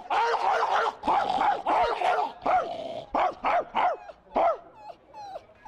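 A man imitating a dog's bark, giving rapid barks about three or four a second that thin out and fade away near the end.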